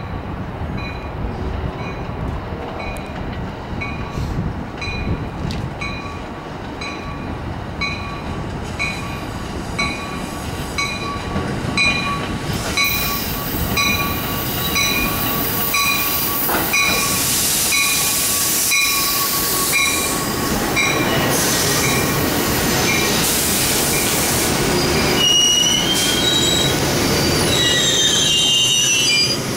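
Metra Electric bilevel electric train arriving at the platform, getting louder as it comes in, with an even dinging about twice a second through most of the approach. High wheel squeals come in near the end as the cars roll past.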